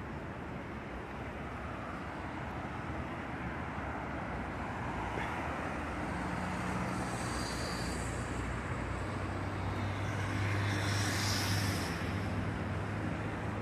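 Bus diesel engine running over steady traffic noise, growing louder in the second half and loudest about eleven seconds in, with a short hiss twice.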